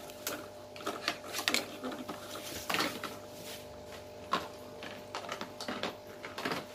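Small plastic toy kitchen pieces being handled, a string of light, irregular clicks, taps and knocks as they are set down and moved about.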